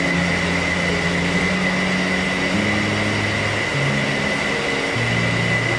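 Steady, loud running noise of commercial kitchen equipment, with a constant high-pitched whine throughout and low held tones that shift pitch every second or so.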